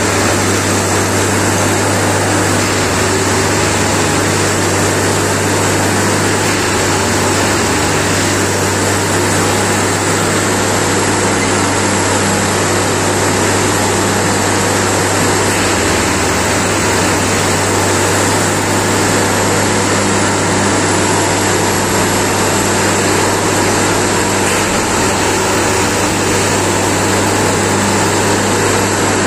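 Diesel engine of a Plasser Dynamic Tamping Express 09-3X track tamping machine running steadily as the machine creeps along the track: a constant low hum under an even mechanical hiss.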